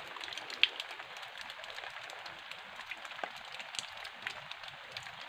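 Steady hiss of falling water on wet ground, with a few small sharp ticks.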